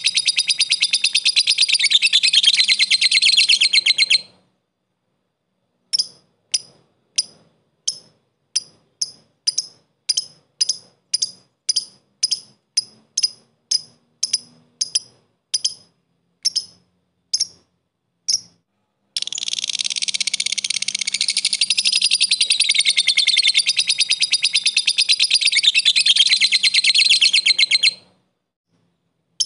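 Blue masked lovebird singing: a long, fast, continuous chattering trill (ngekek) for about four seconds, then about two dozen short separate chirps at roughly two a second (ngetik), then another long ngekek trill of about nine seconds that stops shortly before the end.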